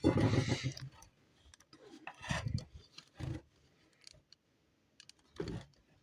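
Tools and small objects being handled on a jeweller's workbench: a louder clatter at the start, then a few separate lighter knocks and clicks.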